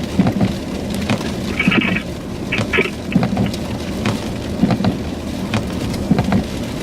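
Sleet and freezing-rain pellets ticking irregularly on a car, over a steady low hum. Two short high beeps come about a second and a half in and again a second later.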